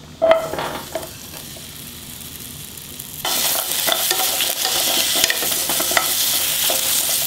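Cut potato pieces tipped from a bowl into a hot oiled pan land with a clatter about a quarter second in, followed by a faint sizzle. From about three seconds in, a louder steady sizzle of the potatoes frying in oil as they are stirred with two wooden spoons, with small knocks of the spoons against the potatoes and pan.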